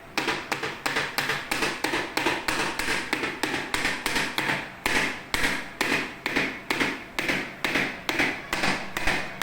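A cake pan full of batter tapped down again and again on a hard surface, a steady run of sharp knocks about three a second, to knock the trapped air bubbles out of the batter.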